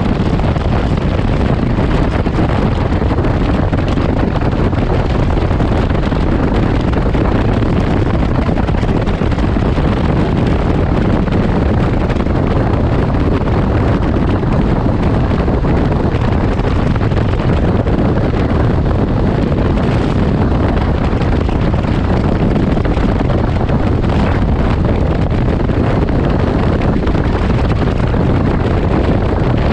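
Steady wind noise rushing over the microphone, mixed with the drone of a Can-Am Ryker Rally's Rotax 900 ACE three-cylinder engine cruising at about 70 mph.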